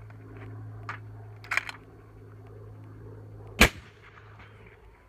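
A single suppressed rifle shot about three and a half seconds in, from a 6.5 Creedmoor with a Thunder Beast 5-inch Ultra .30 cal suppressor, followed by a brief echo. A few light clicks come about a second and a half in.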